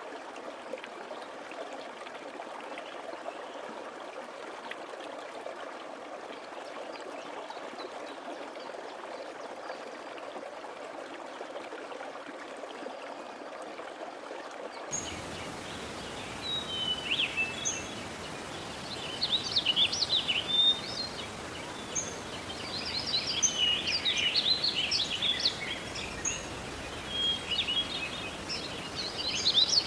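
Steady rushing of a stream for about the first half, then an abrupt cut to a busy chorus of birds chirping and trilling over a light background hiss.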